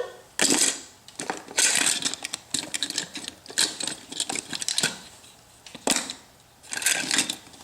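Small hard toy pieces and clips clattering and rattling in irregular bursts as a child rummages through a container.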